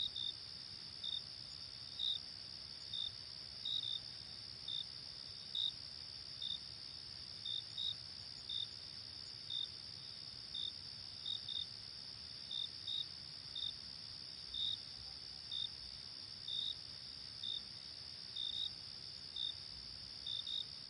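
Crickets at night: a steady high-pitched insect trill, with short, louder chirps over it about once or twice a second at uneven spacing.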